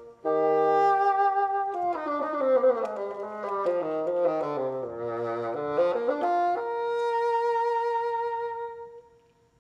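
Two bassoons playing a duet: a held chord, then quick runs down and back up in both parts, closing on one long held note that dies away about nine seconds in.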